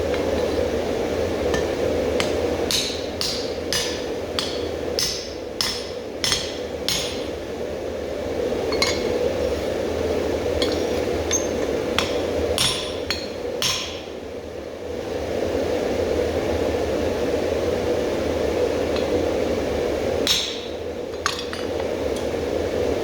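Blacksmith's hammer striking steel on an anvil while working the axe: a run of ringing blows at about two a second, a pause, then two more blows near the end, over a steady drone.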